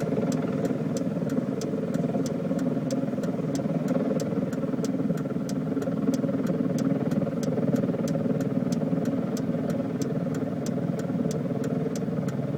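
Steady engine and road noise inside a moving car's cabin, with a faint even ticking high up, about three ticks a second.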